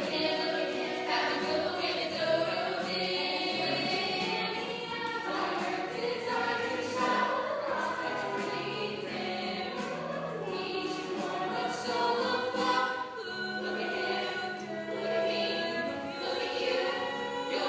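Music with a choir singing held notes.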